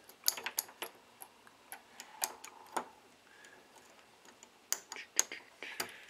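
Irregular light metallic clicks and scrapes as a small screwdriver is worked inside the centre hole of a brass privacy doorknob, feeling for the slotted post of the turn-button lock.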